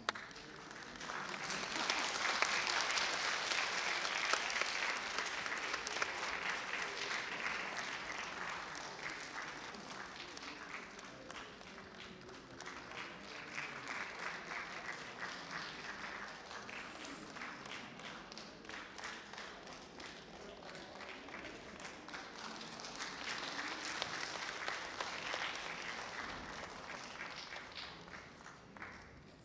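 Audience applauding, the clapping swelling and easing in waves and fading away near the end.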